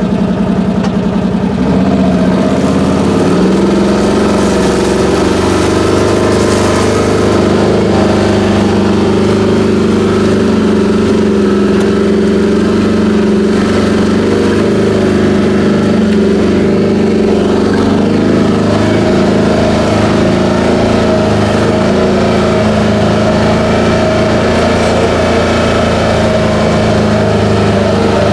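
Vehicle engine running steadily, coming in suddenly at the start and picking up in pitch about three seconds in.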